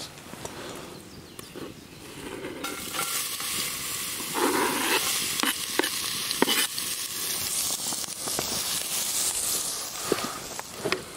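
Diced onion sizzling in hot oil in a cast-iron Dutch oven. The sizzle starts suddenly about two and a half seconds in as the onion goes in, with a few knocks of the chopping board against the pot.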